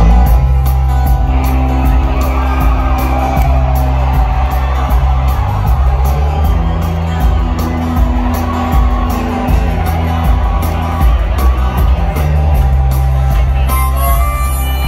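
Southern rock band playing live in a large hall: the full band comes in suddenly at the start, with loud, sustained bass notes under the guitars and drums.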